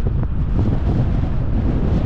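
Strong wind buffeting the microphone of a helmet-mounted GoPro camera during a bicycle ride: a loud, steady low rumble.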